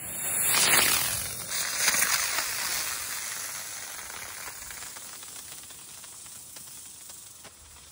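Homemade spinning bee firework: the fuse fizzes, then its sugar and potassium nitrate rocket motor ignites with a loud hiss about half a second in. The hiss surges again near two seconds and then fades steadily as the firework climbs away.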